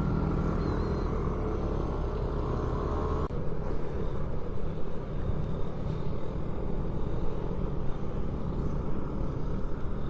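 Motorcycle engine running at steady speed while riding, with wind buffeting the microphone. The sound changes abruptly about a third of the way in, turning rougher and more fluttery.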